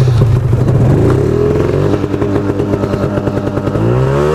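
Ski-Doo MXZ 600 two-stroke snowmobile engine running, its pitch rising with the throttle about a second in and again near the end. It does not sound healthy; the rider suspects a faulty tether switch or the engine computer.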